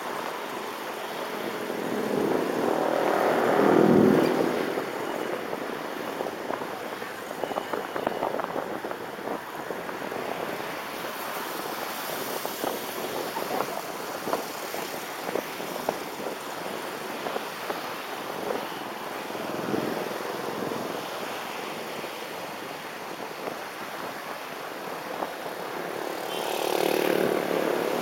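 Road traffic heard from the roof of a moving car: a steady rush of tyre and engine noise, with one loud vehicle passing about four seconds in and a motorcycle engine close by, rising near the end.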